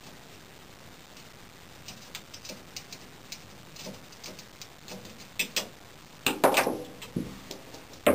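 Light metal clicks and rattles as a bow-press limb clamp is loosened and handled on a compound bow, becoming louder clanks and rattles in the last few seconds as the clamp frame is lifted off.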